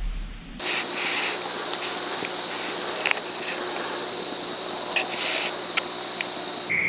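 Insects trilling in one steady, unbroken high-pitched note, with scattered small clicks and snaps. Low wind rumble cuts off about half a second in, and near the end the trill gives way to a lower-pitched one.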